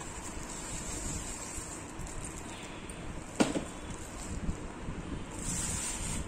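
Plastic wrapping and a cardboard box rustling as a wrapped water bottle is pulled out of its packaging, with one sharp knock a little past halfway.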